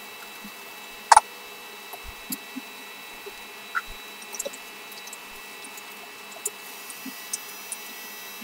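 Close-miked eating sounds: scattered wet mouth smacks, chewing clicks and chopsticks ticks at irregular intervals, with one sharp click about a second in, over a steady faint high hum.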